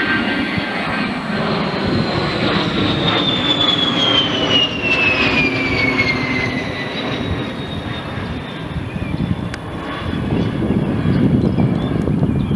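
An aircraft passing: a steady engine rumble with a high whine that falls in pitch over a few seconds, from about three seconds in.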